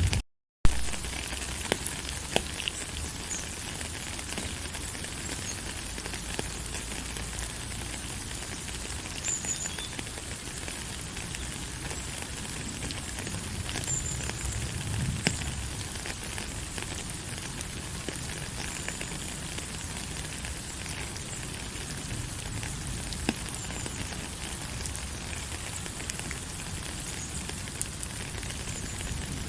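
Steady rain: an even hiss with scattered sharp ticks of drops striking. It cuts out to silence for a split second just after the start.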